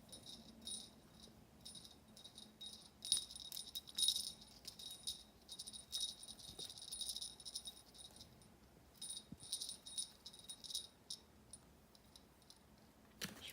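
A small metal bell jingling in irregular shakes, with short pauses a little after halfway and again near the end.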